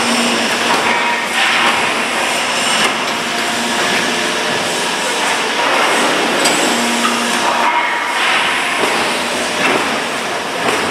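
Running vacuum forming (thermoforming) line: a steady mechanical din with hissing surges a few times, under way with its heaters on.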